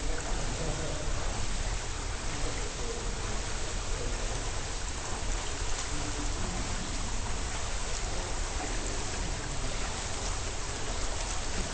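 Steady, even rushing hiss of pool water picked up by a submerged camera, with a few faint clicks and splashes near the end as a swimmer's strokes come closer.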